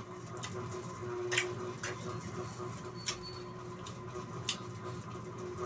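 A person eating with a spoon from a plate: quiet chewing and mouth sounds with a handful of light clicks scattered through, over a faint steady hum.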